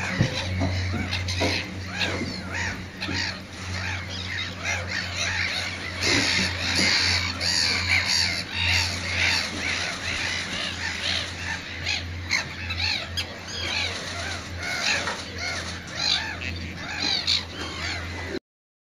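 A colony of nesting black-headed gulls keeps up a racket of harsh, overlapping calls, with a steady low hum underneath. The sound cuts off abruptly just before the end.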